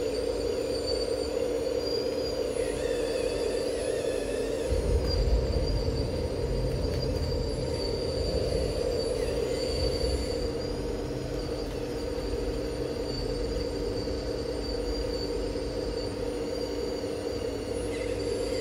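Radio-controlled Liebherr 954 model excavator working, its electric motors making a steady hum with thin high-pitched whines over it. Some of the whines shift in pitch about three to four seconds in and again near the end, and a low rumble joins about five seconds in.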